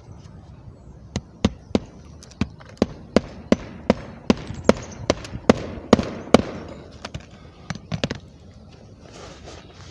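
A run of about fifteen sharp knocks, irregular at roughly two a second, loudest around the middle and thinning out near the end.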